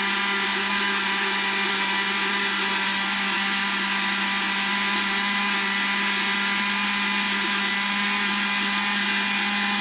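Moulinex countertop blender running steadily at one speed, its motor giving an even hum with a high whine above it, mixing a liquid batter of eggs, oil and sugar.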